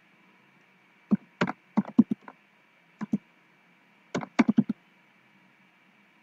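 Typing on a computer keyboard: about a dozen keystrokes in three short runs, with a pause of a second or so between runs.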